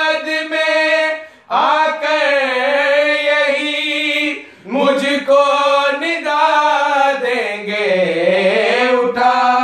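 A male voice singing an Urdu qaseeda in long, drawn-out melismatic phrases, three in all, with short breaks about a second and a half in and just after four and a half seconds.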